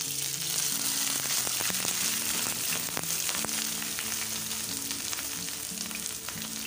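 Washed bitter gourd (karela) peels and seeds tipped into hot oil in a frying pan, sizzling and crackling. The sizzle starts suddenly as they hit the oil and keeps going as the oil bubbles around them.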